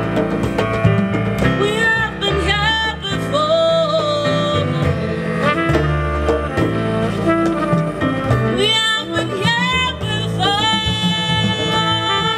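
Live jazz band playing: a trumpet melody over plucked double bass notes, with a woman's voice singing without words.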